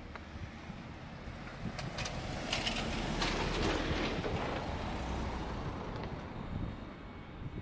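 A road vehicle passing by: its tyre and engine noise swells over a couple of seconds, peaks about halfway through, then fades away.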